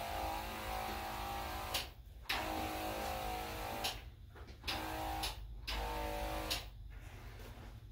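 Ryobi ONE+ 18V cordless electrostatic sprayer spraying in trigger-pulled bursts: a steady pitched motor whine with a hiss of spray. It stops and restarts sharply, giving four bursts of about half a second to two seconds.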